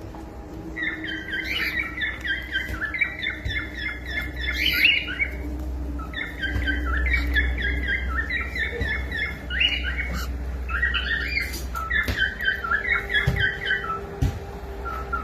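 Cockatiel chattering in three bouts of rapid, short chirping notes, with brief pauses between bouts.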